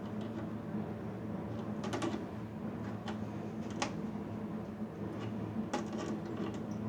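Scattered light clicks and taps of hand tools on metal as fasteners are worked loose from a server chassis, about eight in all and some in quick pairs, over a steady low hum.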